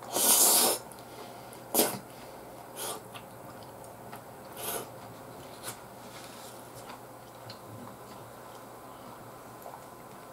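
A man eating with a wooden spoon: a loud, noisy mouth sound about half a second long as a spoonful goes in, then a sharp short noise and a few fainter mouth and spoon noises over a low room hum.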